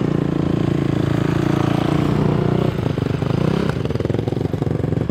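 Quad ATV engine running nearby at a low, steady idle. About three seconds in, its note dips and comes back up.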